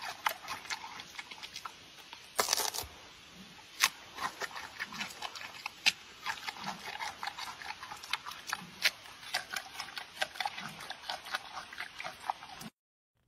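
Giant panda eating soft orange fruit: a steady run of wet smacking, squelching chewing clicks with soft low snuffles every second or two and a louder slurping burst about two and a half seconds in. It cuts off abruptly near the end.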